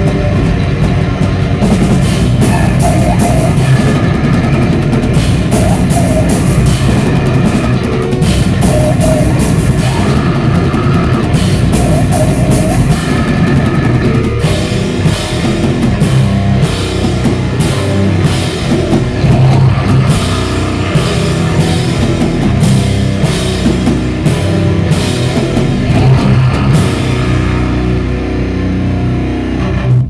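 Heavy metal band playing live: loud distorted electric guitars over a drum kit with frequent cymbal hits.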